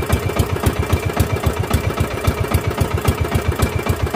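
The engine of a small outrigger fishing boat running steadily, with a fast, even beat.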